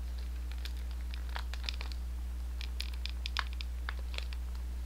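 Small plastic blister-packed toy being handled: scattered faint crinkles and clicks of the packaging, over a steady low electrical hum.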